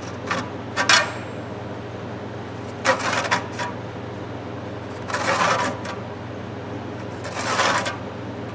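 Handsaw working across the end of a hickory hammer handle in short rasping strokes, a handful of them a couple of seconds apart, trimming the wood.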